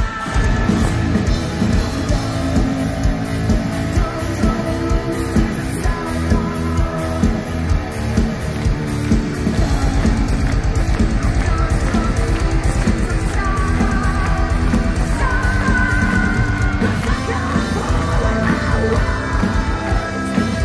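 Live heavy metal band playing loud: distorted guitar, bass and drums, with a female vocalist singing and screaming into the microphone. About ten seconds in, the drums switch to a fast, even kick-drum pattern.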